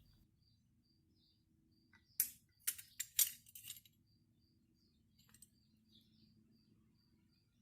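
A quick cluster of light clinks and taps, small hard objects knocking together, starting about two seconds in and lasting under two seconds. Faint high chirps repeat evenly in the background.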